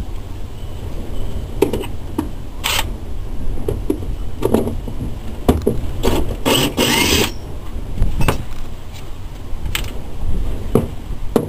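Wind rumbling on the microphone, with scattered knocks and clinks and a louder scraping rustle about six to seven seconds in.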